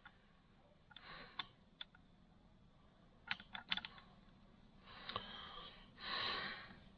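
Light clicks and taps of small hard drill parts being handled, with a quick cluster of several about halfway through. A few short rustling sounds come between them, the loudest near the end.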